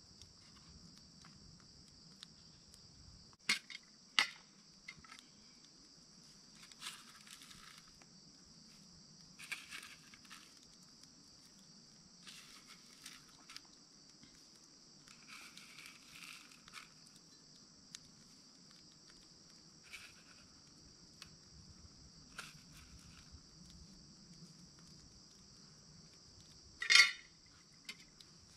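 A steady, high-pitched chorus of insects, with occasional clinks and scrapes of metal camp cookware being handled at the stove: a few sharp knocks about four seconds in, brief rattles through the middle, and one loud clatter near the end.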